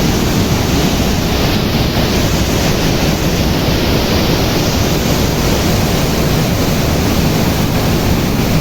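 Loud, steady rush of water pouring through a dam's open spillway gates in full flow, with wind buffeting the microphone.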